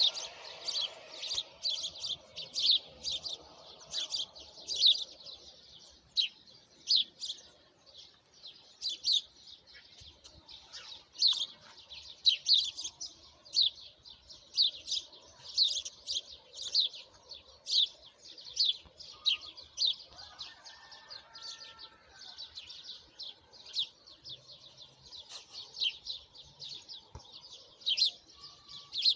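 Small songbirds chirping: a steady run of short, high chirps, each sweeping quickly down in pitch, one or two a second.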